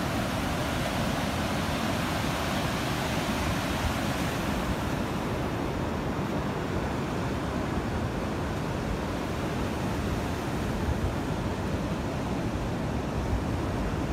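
Steady roar of wind and rushing water, with wind buffeting the microphone.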